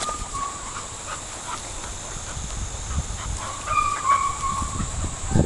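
Dog whining in drawn-out high calls, once at the start and again about four seconds in, over a background of rustling and movement.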